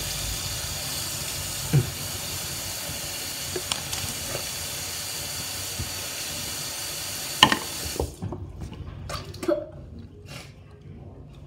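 Bathroom sink tap running steadily, shut off abruptly about two-thirds of the way through. A few knocks and clicks follow.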